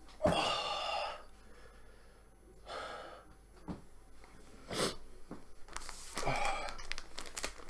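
A man's pained breathing out after eating an extremely hot chili: four heavy, voiced breaths, the first and longest right at the start, with his mouth and throat burning. Near the end, a paper tissue rustles.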